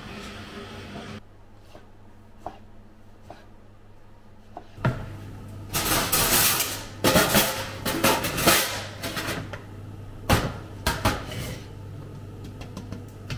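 Metal pans, trays and utensils being handled and set down in a commercial kitchen: a run of clattering and scraping from about five seconds in, easing off after about eleven seconds, over a steady low hum.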